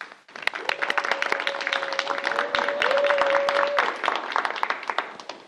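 Audience applauding with many hands clapping. A steady tone is held through the middle of it for about three seconds.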